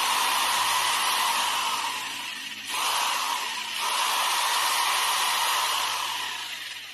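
Electric hand drill's brushed motor running at full speed with a steady high whine, now turning after a replacement carbon brush was fitted. It dips briefly about three seconds in, picks up again, and spins down near the end.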